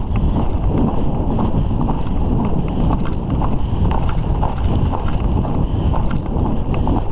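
Heavy wind buffeting on a camera microphone carried on horseback, a dense low rumble, with light regular knocks about twice a second from the horse's hooves on the track.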